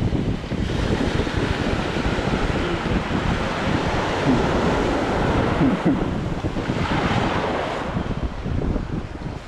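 Wind buffeting the microphone over a steady wash of surf.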